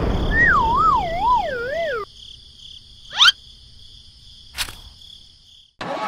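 Cartoon-style sound effects: a wobbling tone slides down in pitch for about two seconds over a noisy rumble, then cuts off. A quieter stretch follows with a steady high-pitched insect-like drone, a quick rising swoosh about three seconds in and a sharp click near the end.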